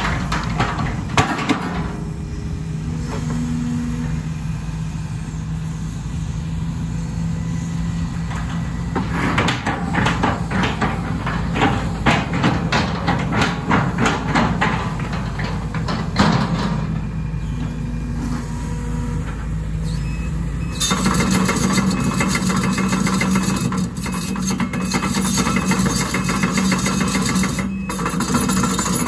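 Link-Belt 250 X4 excavator's diesel engine running steadily while the machine travels on its steel tracks. A run of rattles and clanks from the tracks comes in the middle. Later the machine gets louder and fuller as engine and hydraulics come under more load.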